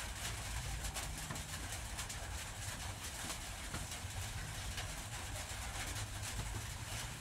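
Rain falling on a roof: a steady hiss full of small ticks, over a low rumble.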